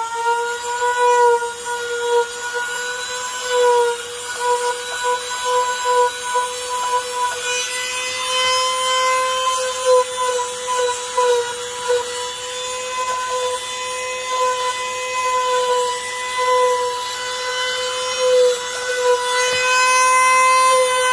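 Small high-speed power tool running with a steady high whine, its pitch wavering slightly as it bears on the work, over a rasping grinding noise.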